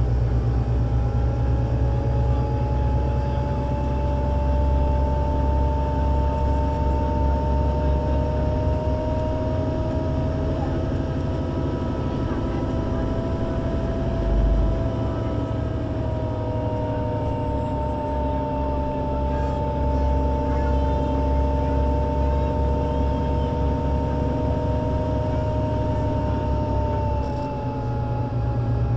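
Solaris Urbino 18 IV articulated city bus under way, its DAF diesel engine and Voith Diwa 6 automatic gearbox running as a steady low rumble with whining tones that slowly rise and fall as the speed changes. There is a low bump about halfway through, and the sound dips briefly near the end.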